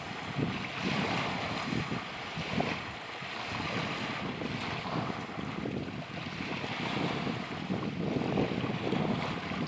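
Small waves breaking and washing onto a shore, with wind noise on the microphone.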